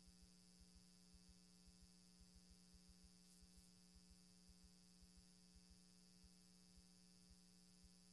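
Near silence: a faint, steady electrical hum with soft low ticks a few times a second, unevenly spaced.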